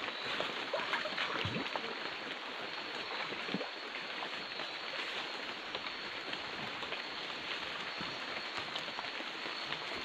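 Steady hiss of a night-time forest, with scattered faint rustles and footsteps through undergrowth.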